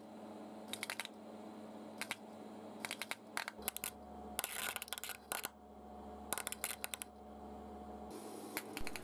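Spark discharges of a homemade resistor-capacitor EDM machine crackling in irregular clusters of sharp clicks as thin copper sheet electrodes erode a metal plate under liquid dielectric, over a steady low hum. The uneven clicking fits the unstable burn of thin sheet electrodes.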